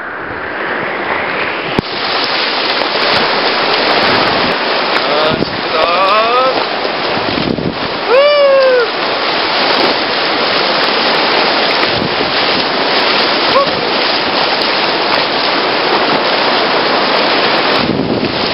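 Whitewater rapids rushing around an inflatable kayak: a loud, steady wash of churning water. Short high-pitched voice calls cut in about five and eight seconds in.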